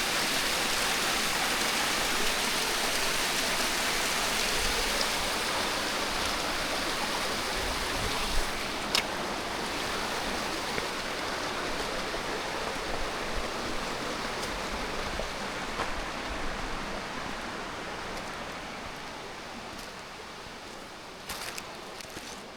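Steady rush of a running stream, slowly growing fainter, with a couple of sharp clicks about eight and nine seconds in and a few more near the end.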